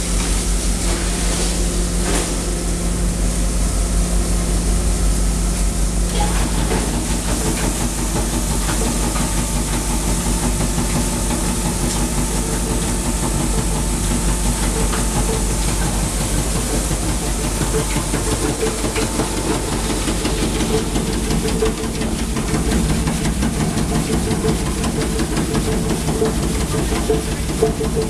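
Sawdust-and-shavings glue mixing machine running steadily: a loud mechanical hum under a steady hiss. The pitch of the hum shifts about six seconds in.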